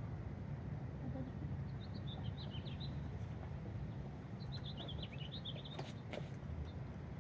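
A small songbird singing two short phrases of quick, high chirps, each about a second long and a couple of seconds apart, over a steady low background rumble. A couple of sharp clicks follow near the end.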